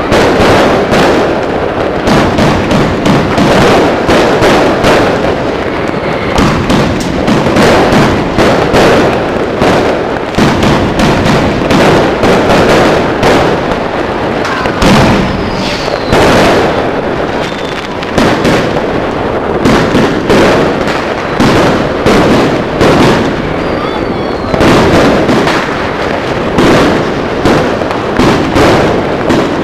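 Fireworks going off in a dense, unbroken barrage at close range: rapid launches and bangs one on top of another, with crackle between them.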